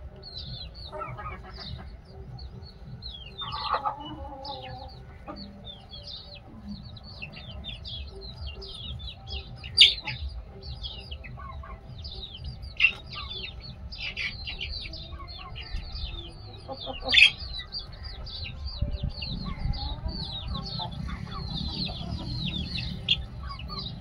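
Desi chickens clucking, with a dense, continual peeping of small chicks. A few louder sharp squawks cut through, about 10, 13 and 17 seconds in.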